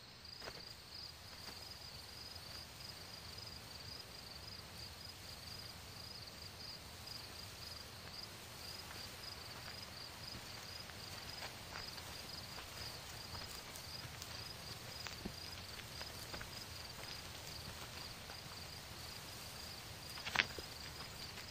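Crickets chirping, a faint, high, evenly pulsing chirp that keeps on steadily, with a few soft clicks and one sharper knock near the end.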